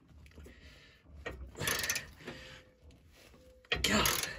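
Socket ratchet being worked on a truck frame bolt, clicking in two short bursts, about a second and a half in and again near the end; the bolts are getting stiff to turn.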